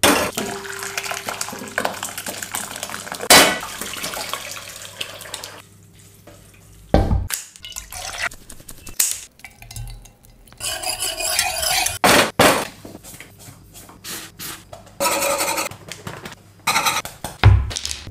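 A run of kitchen sounds: pots and metal utensils clinking and knocking, with sharp knocks at several points, and liquid being poured into a pot, including milk from a carton about ten seconds in.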